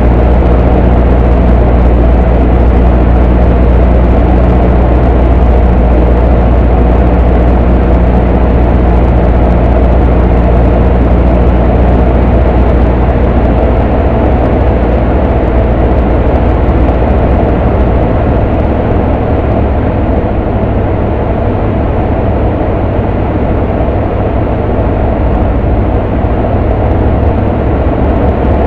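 Cessna 152's four-cylinder Lycoming engine and propeller droning steadily in flight, heard from inside the cockpit along with rushing airflow. The steady low engine tone blurs and weakens about halfway through, and the sound gets a little quieter.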